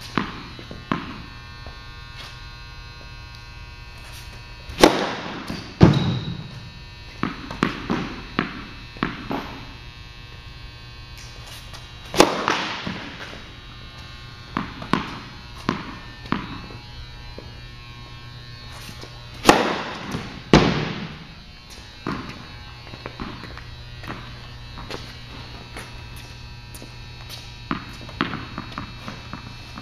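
Tennis ball bouncing on an indoor hard court before each serve, then the sharp crack of the racket striking the ball on the serve, three times, each followed about a second later by another loud thud. The hits echo in a large hall over a steady electrical hum.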